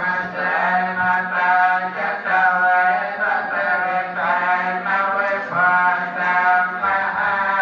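Buddhist chanting: voices intoning a melodic chant in a steady run of sung syllables, with a constant low hum underneath.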